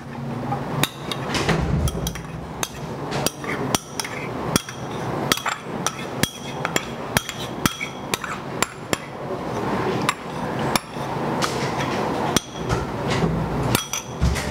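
A spoon knocking and scraping against a small ceramic bowl as egg yolks are emptied from it: a long, uneven run of sharp clinks and knocks, a few each second.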